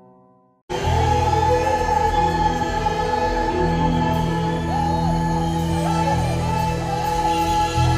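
The last notes of a short chime-like jingle fade out, then under a second in a live concert recording cuts in: an orchestra with held bass notes and a woman singing over it, loud and full in a large venue.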